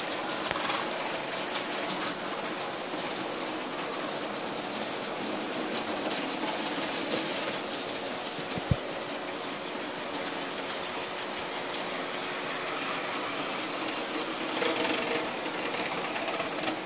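Large-scale model trains running on track: a steady electric motor and gear whir with a light clicking of wheels over the rail joints, and one sharp knock about nine seconds in.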